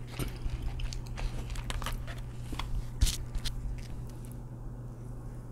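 Close-miked rustling and crinkling of a wrapped fast-food chicken sandwich's paper and packaging as it is picked up and handled: a run of small crackles with one louder crackle about three seconds in, growing quieter near the end.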